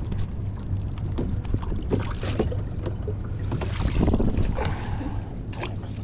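Wind on the microphone aboard a small boat over a steady low drone, with scattered knocks and clatter. A louder rush of noise comes about four seconds in.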